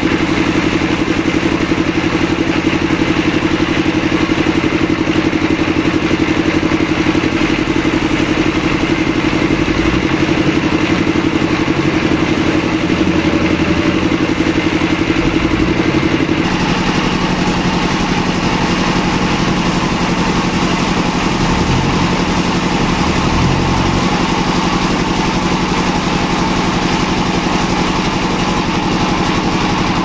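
An engine running steadily at a constant speed. Its pitch and tone change abruptly about sixteen seconds in, then it runs steadily again.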